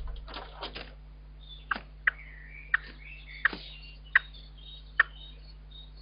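Eurasian blackbird at its nest giving a series of short, sharp call notes, roughly one a second, from about two seconds in, with faint higher twittering between them over a low steady hum. The calls are to its chicks, which no longer answer.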